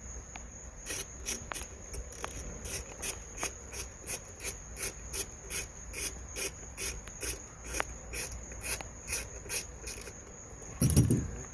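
A hand tool turning a screw in short, regular rasping strokes, about two a second, followed by a single louder thump near the end.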